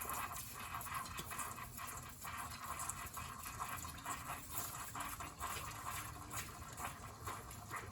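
Goat's milk squirting by hand from the teats into a filter on a milk jug, in short hissing streams at about two squirts a second.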